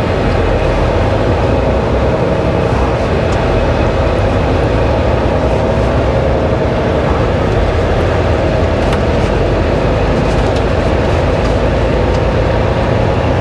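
Steady engine and road noise heard inside a semi truck's cab as the truck drives along.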